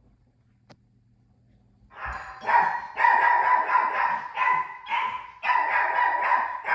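A dog barking repeatedly, starting about two seconds in, in a quick string of barks that run into one another, the way a house dog barks when someone arrives at the door.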